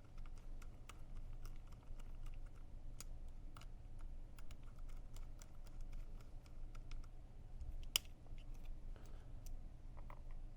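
Scattered small clicks and taps of metal and plastic gun parts and tools being handled while parts are fitted and screwed onto an airsoft pistol, with one sharper click about eight seconds in.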